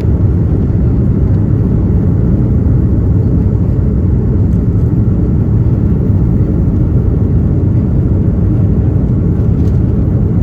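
Steady low rumble of an Airbus A330-200's engines and airflow heard inside the passenger cabin.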